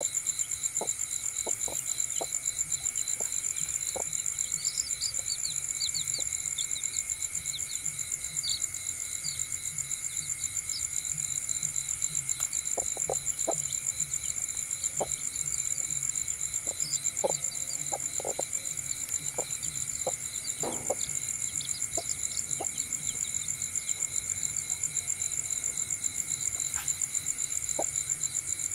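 A broody hen clucking in short, scattered notes while her chicks peep, over a steady, fast-pulsing chorus of night insects such as crickets.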